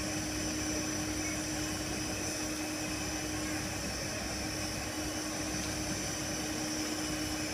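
C11 steam tank locomotive standing at rest, giving off a steady hiss with a steady hum running under it.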